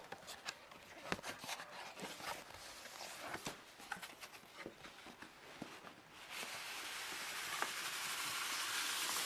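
Cardboard packaging being handled, with scattered light taps and rustles; about six seconds in, a steady scraping hiss that slowly grows louder as a styrofoam packing tray slides out of the cardboard box.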